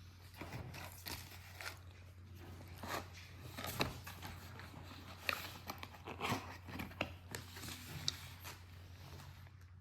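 Irregular clicks, crackles and crunches at an uneven pace, over a low steady hum.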